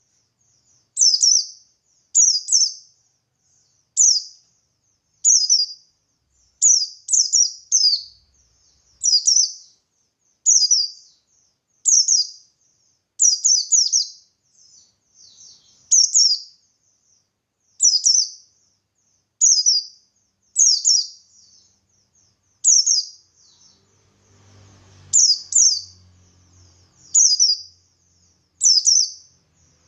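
Oriental white-eye of the buxtoni race (pleci buxtoni) singing: a run of short, high, sharp twittering phrases, each dropping in pitch, repeated about every second or so.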